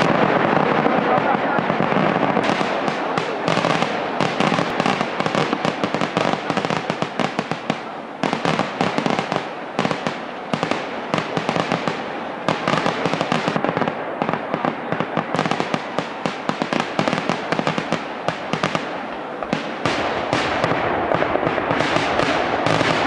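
Massed festival fireworks going off in a continuous barrage: a dense, unbroken stream of bangs and cracks, many a second.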